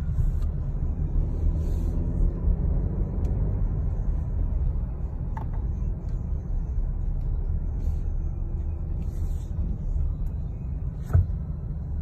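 Steady low road and engine rumble inside the cabin of a 2020 Ford Explorer ST driving along, with a light knock near the end.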